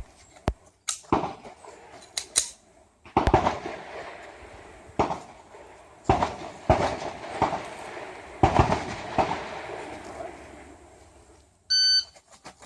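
A string of sharp bangs and knocks. Near the end comes one steady electronic beep of about half a second: a shot timer's start signal for a practical pistol stage.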